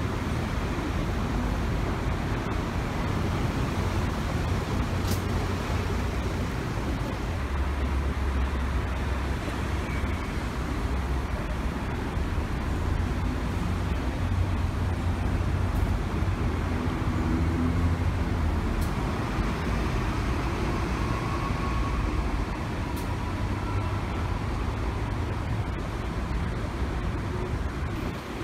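City buses running through a station bus terminal's turning loop: a steady low engine rumble with traffic noise, a little louder for a while midway as a bus drives close by.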